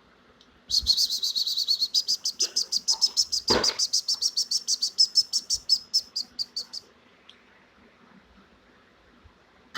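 Lovebird chattering in a fast, even run of shrill chirps, about eight a second, that starts under a second in and stops after about six seconds. A single knock sounds partway through.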